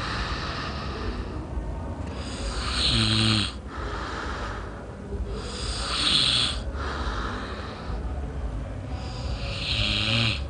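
A man snoring heavily in his sleep: a loud snore about every three seconds, three of them, with quieter breathing between.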